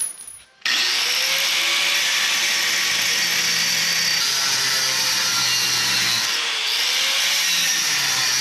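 Angle grinder's thin abrasive disc cutting into steel held in a bench vise. It starts less than a second in and runs steadily under load, easing off briefly about six seconds in.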